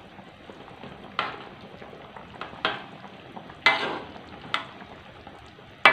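Metal spatula stirring a simmering asam pedas fish and okra gravy in a metal wok, clinking against the pan about five times over a steady faint bubbling.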